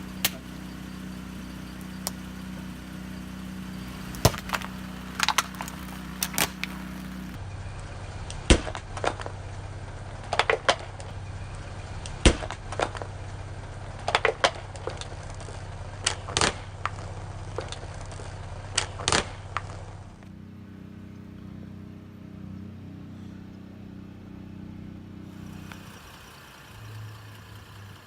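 Car tyre rolling over and crushing brittle objects: a run of sharp cracks and snaps over the car's steady engine idle.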